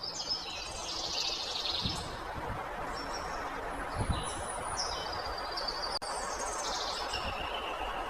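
Many birds chirping and whistling in short calls over a steady background hiss of forest ambience.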